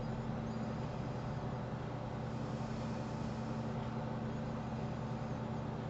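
Steady low hum with a faint even hiss, unchanging throughout, with no distinct events.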